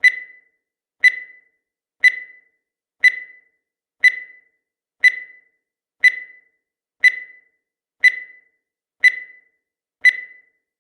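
Countdown timer sound effect: a short high-pitched beep once a second, eleven in all, each dying away quickly.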